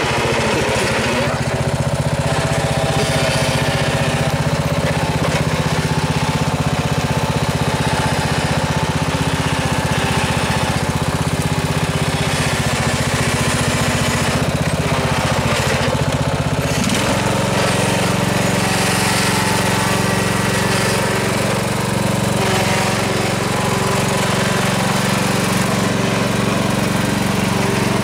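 Riding lawn tractor engine running steadily under load, pulling a trailer of logs. The engine note shifts a little past halfway through.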